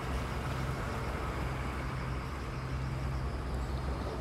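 Steady low mechanical hum, like an engine running at a constant speed, over a faint even background hiss.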